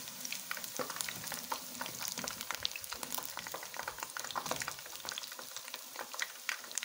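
Spinach pakoras deep-frying in hot oil: a steady sizzle with many quick crackles, as the fritters, browned on both sides, are lifted out with a wire-mesh skimmer.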